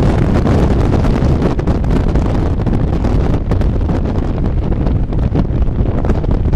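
Storm-force wind buffeting the microphone in loud, gusty rumbles, heaviest at the low end.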